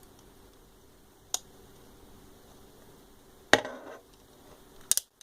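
Hard plastic clicks of LEGO bricks knocking together as the handles of a LEGO butterfly knife are swung: a single click, then a louder clack with a short ringing tail, then a quick double click near the end.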